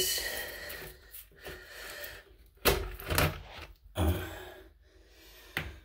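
Ribbed plastic toilet outlet tube being pushed and twisted into an old 3-inch drain pipe as a friction fit: plastic rubbing and scraping against the pipe, with several sharp knocks in the second half.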